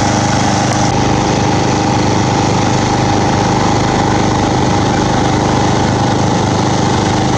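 Small petrol engine of a portable generator running steadily at constant speed, a loud even hum with a steady whine on top.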